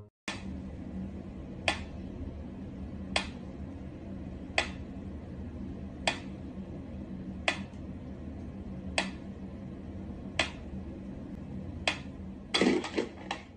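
Mechanical pyramid metronome ticking slowly and evenly, about one sharp tick every second and a half, over a low steady hum. A short burst of louder knocks and clatter comes near the end.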